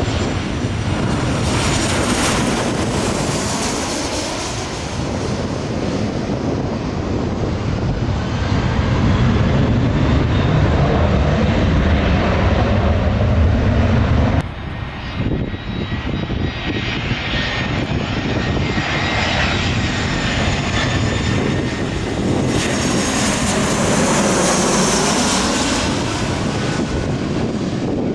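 Jet airliners passing low overhead: a loud rushing engine noise with high whining tones that swells and fades. The sound breaks off abruptly about halfway through, and a second jet's pass builds up.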